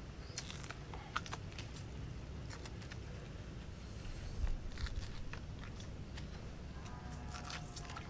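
A machete chopping and shaving the husk of a green coconut: a scattering of sharp, short cuts, with a louder cluster a little past halfway.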